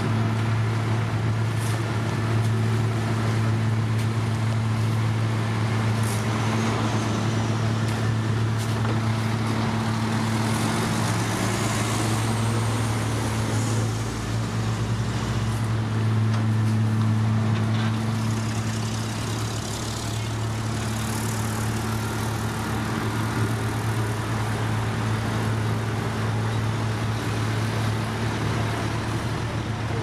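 Heavy diesel engines of a road paver and the dump truck feeding it running steadily, a constant low engine hum. About eleven seconds in, one engine's pitch rises briefly as it revs.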